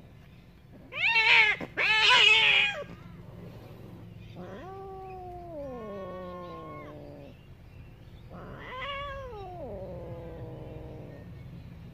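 Domestic cats yowling while mating. Two loud, sharp cries come about a second in. Then a long drawn-out yowl falls in pitch around four to seven seconds in, and another rises and falls near nine seconds.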